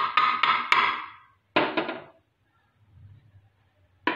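Quick metallic knocks of a steel spoon against a cooking pan, each with a short ring, in small clusters: several at the start, three more about one and a half seconds in, and another near the end.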